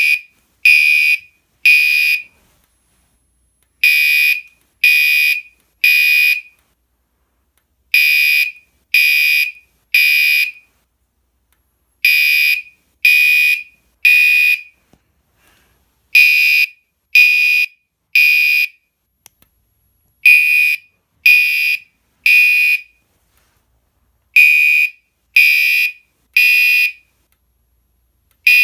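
Fire alarm sounding the temporal-three evacuation signal: three high-pitched beeps about a second apart, then a short pause, repeating every four seconds.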